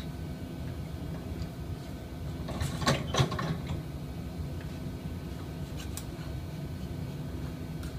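A hand tool scraping and clinking against a mixer's mixing bowl as it is cleaned out, loudest for about a second in the middle, with a few light clicks later. A steady low machine hum runs underneath.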